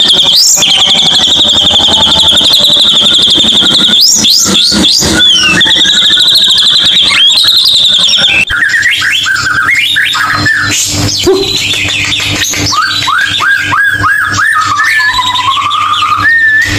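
White-rumped shama song played as a lure recording to get a silent caged shama singing. First a high, steady trilling note held at one pitch with short whistles cutting in, then, after an abrupt cut about halfway, a run of varied whistles: quick rising sweeps in a row and a few lower held notes.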